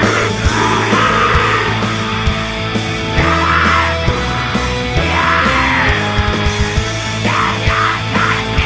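Black metal song: distorted guitars and drums, with harsh shouted vocals coming in several times.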